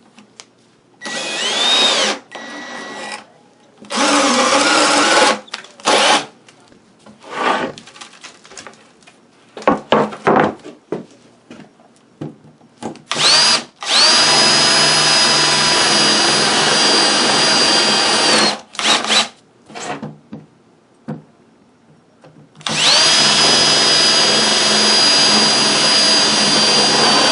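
Handheld router spinning up with a rising whine and cutting into wood in several runs: short bursts in the first few seconds, then two long steady runs of about five seconds each later on.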